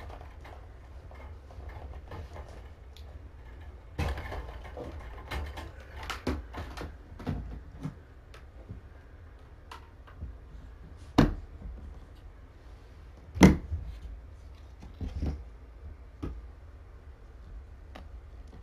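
Clicks and knocks of a clear plastic storage tote used as a steam box being handled: the humidifier lifted off its lid and the lid's latches and lid worked open, with two sharp plastic knocks in the second half.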